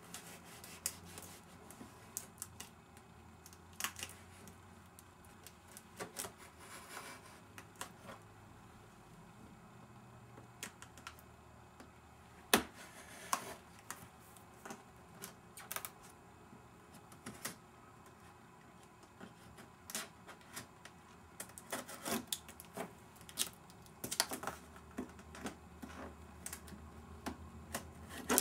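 A new iMac's box being opened by hand: quiet, scattered clicks, taps and scrapes of packaging being handled, with one sharp snap about twelve seconds in, the loudest sound, and a busier run of clicks near the end.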